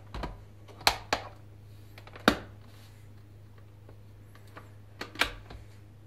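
Sharp plastic clicks and knocks as the rotating shell of a De'Longhi Dolce Gusto Eclipse coffee machine is swung shut by hand: two about a second in, a loud one just after two seconds, and a pair near the end.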